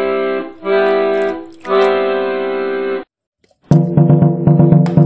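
Background music: three held keyboard chords, like an organ or electric piano, then a short silence, and from near four seconds a different tune with a regular beat starts.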